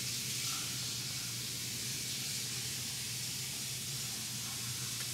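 Steady, even hiss with a faint low hum beneath it.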